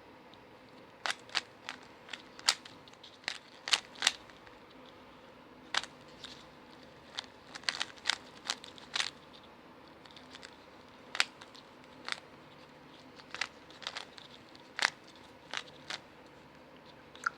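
Layers of a plastic 3x3 speed cube being turned by hand during a solve: sharp clicks, some single and some in quick runs of two or three, with pauses of a second or so between bursts.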